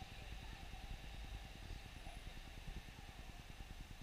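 Faint outdoor town ambience: a steady low rumble with a light hiss over it.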